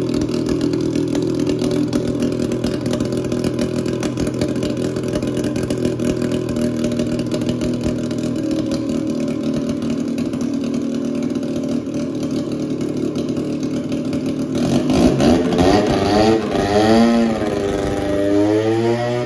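1978 Polaris Cobra 440 snowmobile's two-stroke engine running with its exhaust not yet fitted. It idles steadily, then about three quarters of the way through it is revved several times, the pitch rising and falling with each blip of the throttle.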